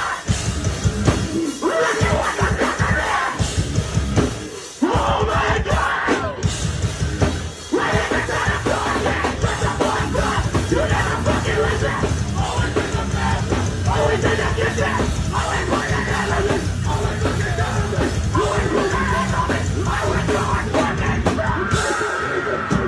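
Heavy rock band playing loudly with yelled vocals. The music cuts out briefly twice, about 5 and 8 seconds in, then comes back in.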